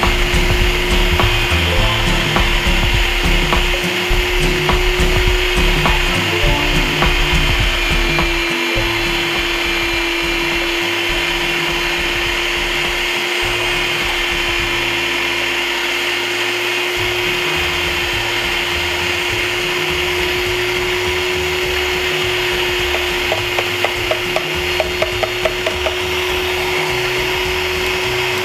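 Electric meat grinder running with a steady motor hum as it grinds cooked liver with onion and carrot, rougher for the first several seconds and then smoother. A quick run of light clicks comes near the end.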